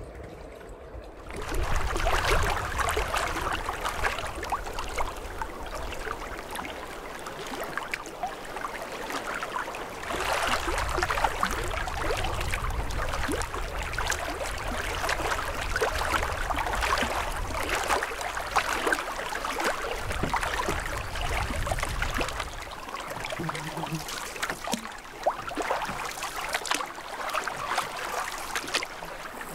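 Lake water lapping and splashing, a continuous crackly wash of many small irregular splashes, with a low rumble of wind on the microphone that drops away near the end.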